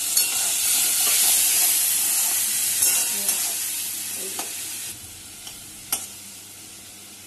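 Loud sizzling as a little water hits the hot oil and spices in a metal wok, dying away over a few seconds as the masala cooks down. A metal spatula scrapes and taps against the pan a few times while stirring.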